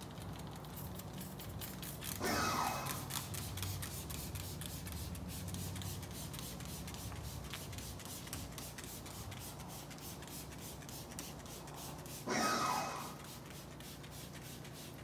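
Handheld trigger spray bottle misting bug remover onto a car's front end, over a steady low hum. Two short louder bursts stand out, about two seconds in and near the end.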